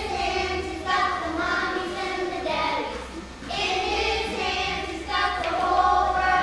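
A group of young children singing a song together, in phrases of held notes.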